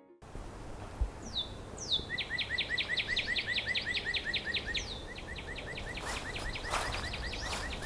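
Outdoor ambience with a songbird: two quick down-slurred whistles, then a fast trill of repeated notes, about seven a second, that slows and fades. From about six seconds in, footsteps crunch.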